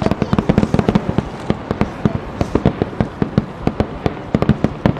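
Aerial fireworks barrage: rapid, overlapping bangs and cracks of shells bursting and launching, many a second without a pause.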